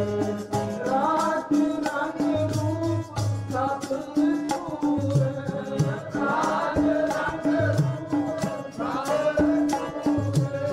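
Sikh keertan: male voices sing a devotional hymn to harmonium and tabla, with a steady rhythm of sharp clicks from wooden hand clappers (kartals).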